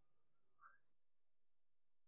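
Near silence: room tone, with one faint, brief sound about two-thirds of a second in.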